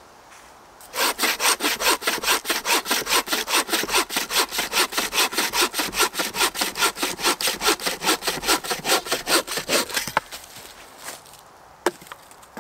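Hand saw cutting through a mossy wooden branch in rapid, even strokes for about nine seconds, then stopping. A single sharp knock follows near the end.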